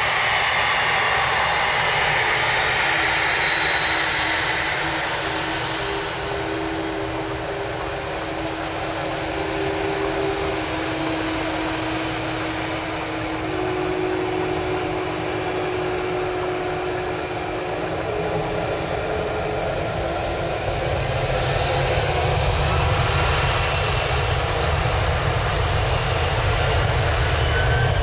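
Boeing 767-300ER freighter's twin turbofan engines running as the jet taxis along the runway: a steady jet rush with a thin whine, the low rumble growing stronger in the last several seconds.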